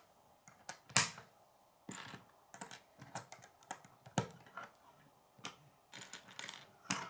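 Plastic K'nex rods and connectors clicking as they are handled and snapped together on a wooden table: a few irregular, separate clicks, the sharpest about a second in.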